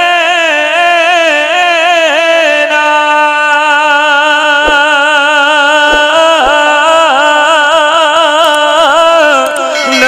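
A man singing a naat through a microphone: one long, drawn-out melismatic phrase with wavering, ornamented pitch, holding a single steady note for a few seconds in the middle.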